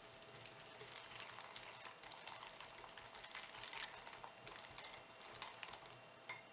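Metal wire whisk clicking and scraping quickly against a glass bowl as it beats sugar into a thick paste of melted white chocolate and butter: a faint, fast, irregular clatter that stops near the end.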